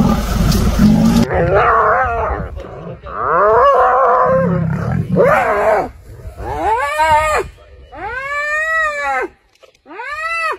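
A lion growls deeply for about the first second, then a spotted hyena under attack gives a run of about six loud squealing calls, each rising and then falling in pitch. These are distress calls from the hyena as it is bitten and held down.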